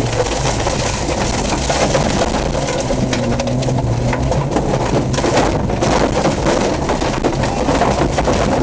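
Off-road competition vehicle's engine running hard under load, its pitch rising and falling with the throttle, heard from inside the cab. It is mixed with a constant clatter of knocks and rattles from the body and suspension over rough dirt.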